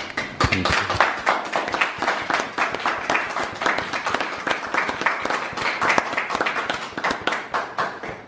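Audience applauding: a dense run of hand claps that starts suddenly and thins out near the end.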